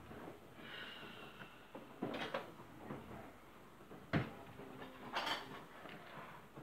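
Kitchen clatter of utensils and cookware being handled: a few knocks and clinks, the loudest a sharp knock about four seconds in, followed by a brief bright rattle.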